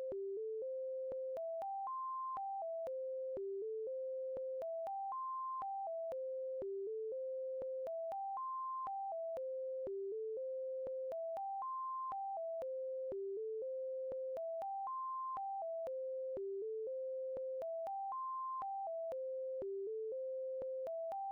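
Simple electronic melody of pure, whistle-like tones, one note at a time, climbing to a high note and stepping back down. The same short phrase repeats about every three seconds, with a faint click at each note change.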